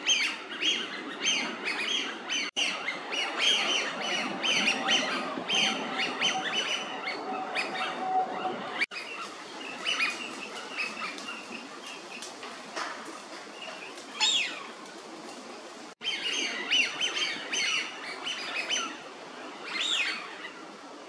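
A flock of Eurasian wigeon calling: many short, overlapping whistles. Now and then a single drake's clear whistle rises and falls, twice standing out near the end. The sound cuts out for an instant three times.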